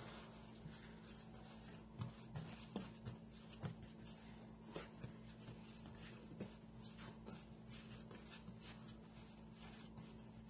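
Bread dough being kneaded by hand on a floured countertop: faint rubbing and soft, irregular thumps as the dough is pressed, folded and rolled, a little more frequent in the first half.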